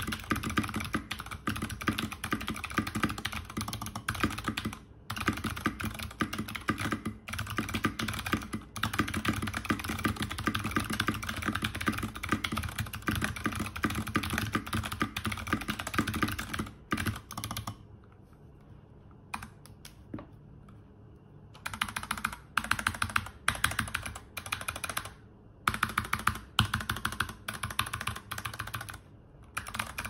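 Fast typing on a mechanical keyboard with Zeal Clickiez clicky switches, KAT-profile keycaps and a stock NK65 Entry Edition case: a dense run of sharp key clicks. About two-thirds of the way through the typing stops for roughly four seconds, then picks up again with a couple of brief breaks.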